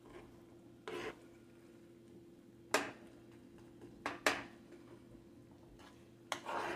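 Metal spoon clinking and scraping against a skillet while a simmering butter sauce is stirred: a few separate sharp clicks, two close together about four seconds in, then a longer stretch of scraping near the end.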